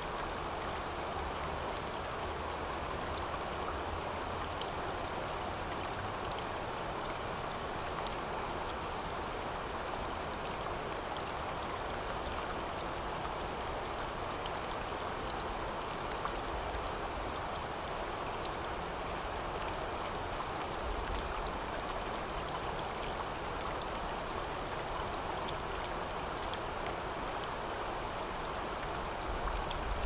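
Shallow river water babbling over stones and rocks: a steady rushing with scattered small splashes.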